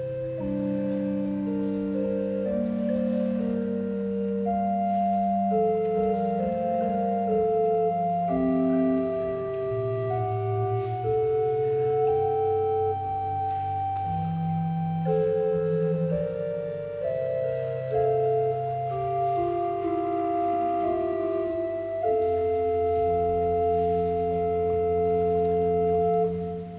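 Slow organ music: chords of long, steadily held notes, breaking off briefly near the end.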